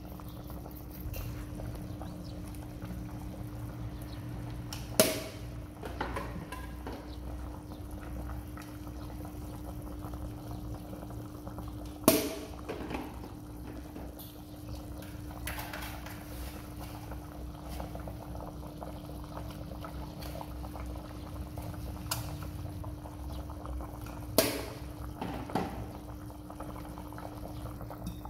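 A stainless steel pot of fish and vegetable soup boiling on the stove, bubbling steadily over a constant low hum, broken by a few sharp knocks.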